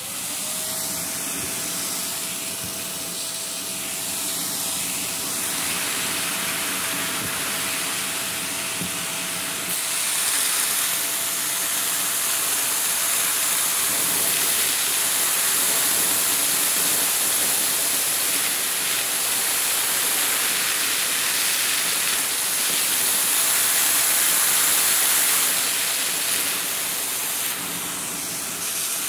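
Vacuum cleaner switching on and running steadily: a motor whine that climbs as it spins up in the first second, then holds over a constant rush of air. The hiss grows brighter about ten seconds in.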